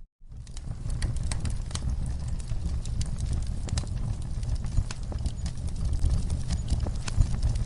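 Wood fire crackling in a fireplace: irregular sharp pops and snaps over a steady low rumble. The sound drops out briefly at the very start.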